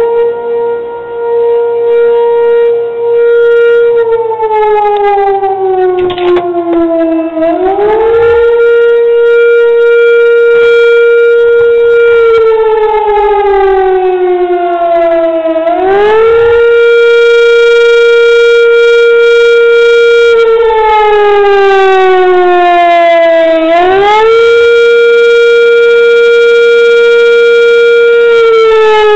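A 1938 Fedelco electromechanical siren sounding a loud wail. Its pitch climbs quickly, holds steady for about four seconds, then slides slowly down before climbing again, about once every eight seconds.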